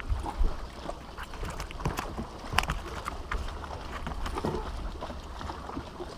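Scattered light knocks and clicks in a bass boat as a just-landed bass is handled, over a steady low rumble of wind and water.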